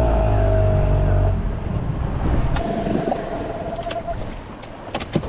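Boat motor running with a low, steady hum and a whine, loud for about the first second and a half, then giving way to a hiss of wind and water, with a few sharp knocks near the end.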